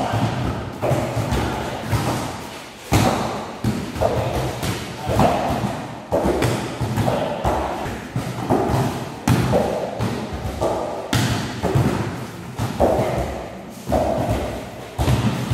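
Volleyballs being struck in forearm and overhead passes: a string of irregular thumps, about one to two a second, each echoing in a large sheet-metal hall.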